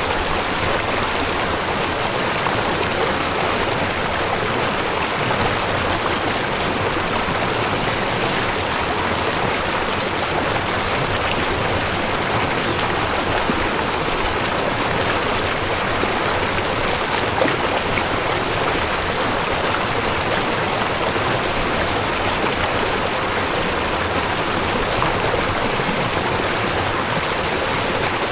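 River water flowing and rushing steadily, a constant, even wash of water noise.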